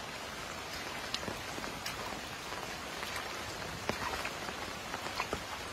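Steady rain falling on shallow muddy floodwater: a continuous hiss with scattered sharp ticks of single drops landing close by.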